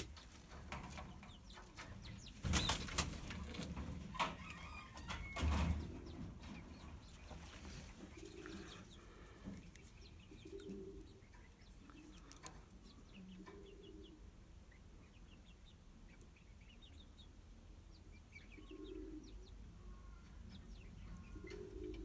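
A pigeon's wings flap in two loud bursts a few seconds in, then pigeons coo low at intervals of a few seconds, with faint high chirps.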